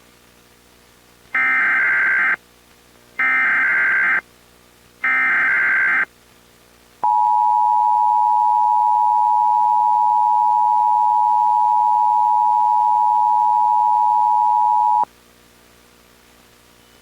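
Emergency Alert System SAME header: three one-second bursts of digital data tones, each about a second apart. About seven seconds in, the EAS attention signal follows, a steady two-tone alert held for about eight seconds that cuts off suddenly.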